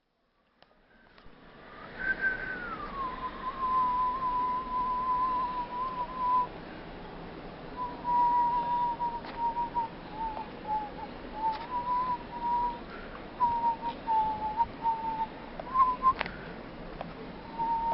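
A thin whistling tone that glides down about two seconds in, then holds near one pitch, wavering slightly, with a few short breaks and dips.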